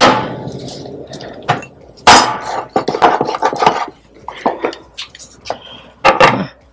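Meat cleaver chopping through the joints of a raw whole chicken on a wooden cutting board, cutting off the feet: a series of sharp, uneven knocks, the loudest about two seconds in and another hard one near the end.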